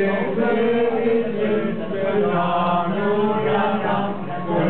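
A group of people singing a habanera together in long, held phrases, with a short dip between phrases near the end.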